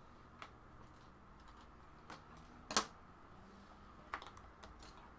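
Plastic Lego pieces clicking as they are handled and pressed together: about five separate sharp clicks, the loudest a little past the middle.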